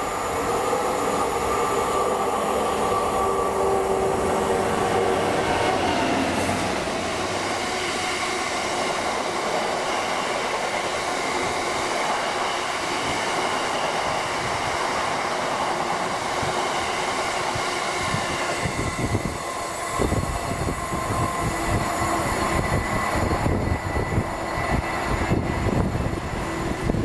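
A diesel freight locomotive passes through at speed, its engine note heard for the first few seconds, followed by a long train of box wagons rumbling and clattering over the rails. Near the end the sound turns to an irregular low clatter and buffeting.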